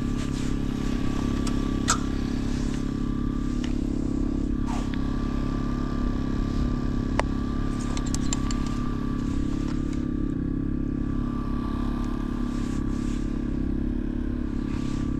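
Engine on a bowfishing boat running steadily, a low hum with a thin steady whine above it. A few light clicks and knocks come through it.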